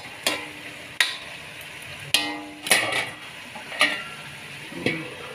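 Metal spatula scraping and knocking against a metal wok while stirring chicken pieces frying in oil, about one sharp clack a second. Some strikes leave a short metallic ring, over a light sizzle.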